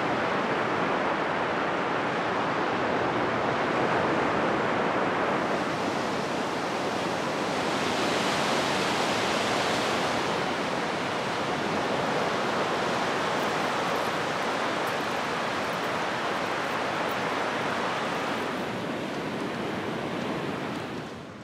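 Ocean surf washing steadily on the shore, swelling and easing as waves break, with a brighter rush about eight seconds in.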